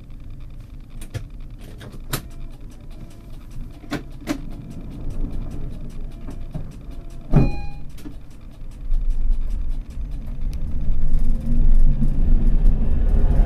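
Inside a tram's driver's cab: scattered clicks and knocks from cab equipment while the tram stands, one sharper knock with a short ring about seven seconds in. From about nine seconds a low rumble of the tram's traction and running gear builds, growing louder as it pulls away.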